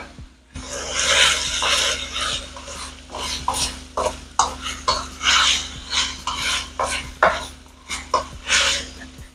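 Wooden spatula stirring and scraping chicken strips, bell peppers and mushrooms around a non-stick wok in quick, irregular strokes, over a low steady hum.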